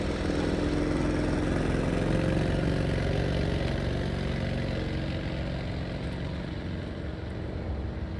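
2020 Audi S6's 2.9-litre V6 running steadily at low revs through its quad-tip sport exhaust, slowly fading as the car pulls away.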